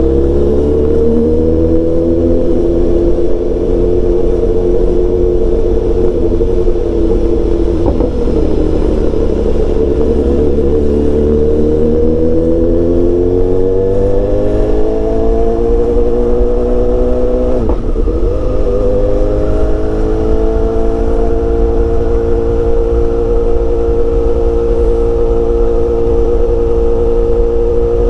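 BMW S1000XR's inline-four engine running under way from the rider's seat: the note rises as the bike pulls away, eases off and climbs again about halfway through, then holds a steady pitch while cruising, over a steady low rumble.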